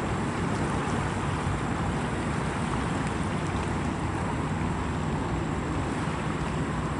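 Steady low rumble of a distant double-stack intermodal freight train rolling across a steel truss bridge.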